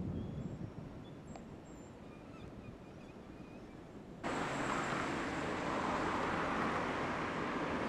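Outdoor ambience on a home-video microphone: a low rumble with a few faint, high chirps, then about four seconds in a loud, steady rushing noise cuts in abruptly.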